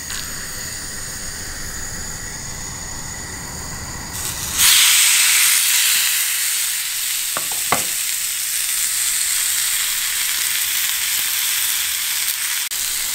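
Olive-oil-rubbed T-bone steak laid into a hot ridged grill pan: after a steady low hiss, a loud sizzle starts suddenly about four and a half seconds in and keeps going as the meat sears. Two light clicks come about halfway through.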